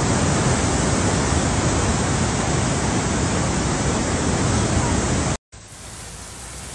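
Steady, loud rush of a flash-flood torrent churning through a drainage channel. It cuts off abruptly a little over five seconds in, and a quieter hiss of heavy rain on a flooded street takes over.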